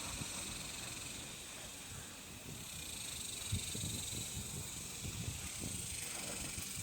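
Dogs playing: irregular low thumps and scuffles over a steady high hiss.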